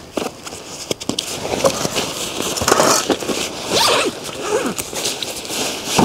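Irregular rustling and scraping in short bursts, like zips and fabric being worked by hand.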